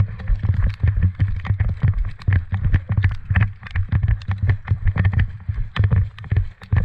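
Footsteps of a person running, heard as irregular heavy thuds about two to three times a second, mixed with sharp clicks and knocks.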